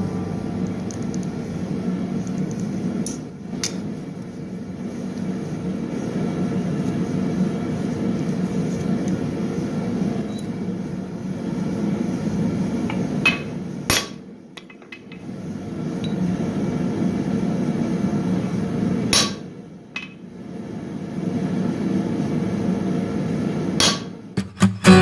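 Blacksmith forging steel: a steady low running noise from the shop equipment, with a handful of sharp metallic clanks scattered through it. The sound drops out briefly at a few edits.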